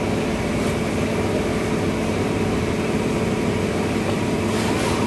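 A steady mechanical hum with several held tones, even in level throughout.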